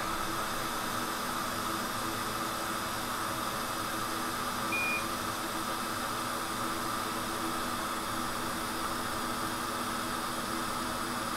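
Steady hum and fan hiss from electronics bench equipment during microsoldering, with one short high electronic beep about five seconds in.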